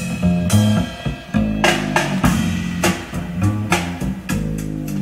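Instrumental passage of a rock/blues song, with guitar, bass guitar and drum-kit hits, played back through a home-built transistor power amplifier and a pair of bookshelf speakers.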